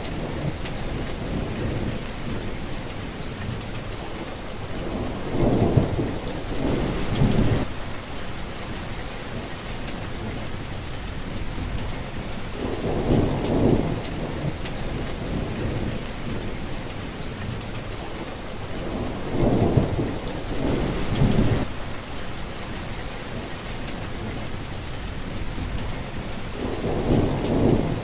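Steady rain falling, with a low rumble of thunder swelling up and dying away four times, about every seven seconds.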